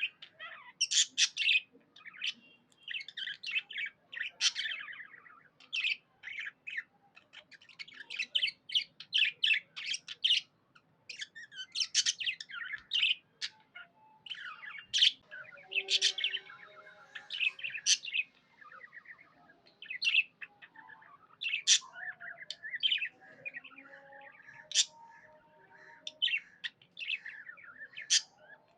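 Budgerigars chirping and warbling in rapid, busy clusters of short high notes with brief pauses, the contented chatter of happy budgies.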